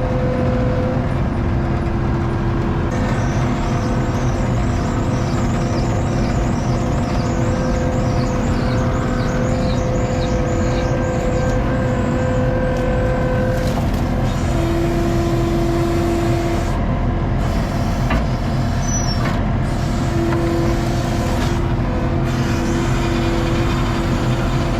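ASV RT-40 compact track loader running steadily at working revs, with the whine of its hydraulics as the grapple and arms are worked; steady whining tones come and go and shift a little in pitch.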